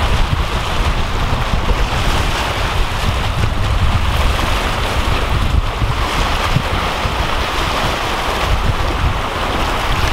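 Wind buffeting the microphone in a steady low rumble, over choppy bay water washing and slapping against shoreline rocks.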